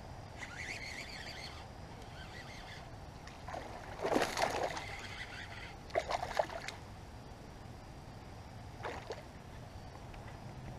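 Hooked largemouth bass splashing and thrashing at the pond surface while it is reeled in, with the loudest splashes about four and six seconds in and a smaller one near nine seconds.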